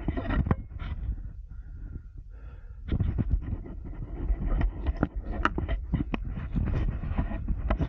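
Rumble and handling noise on a body-worn action camera as the wearer moves, with scattered short knocks and clicks throughout. It is quieter for a stretch in the first half.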